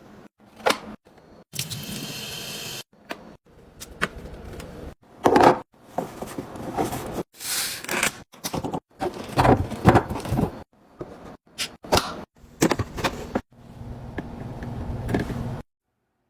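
Restocking and organizing handling sounds: a run of clicks, knocks and rustles as containers and packaging are picked up, moved and set down. It stops abruptly near the end.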